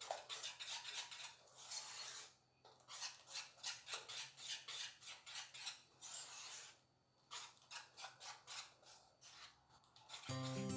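A spoon stirring thick pancake batter in a metal bowl, scraping the sides in quick rhythmic strokes, about four a second, with two short pauses. Background music comes in near the end.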